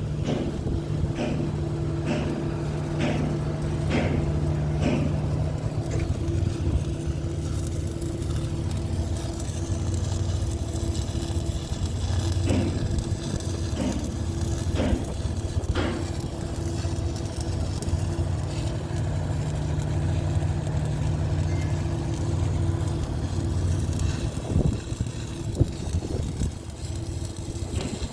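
A steady machine or engine hum, with sharp knocks about once a second for the first few seconds and a few more around the middle.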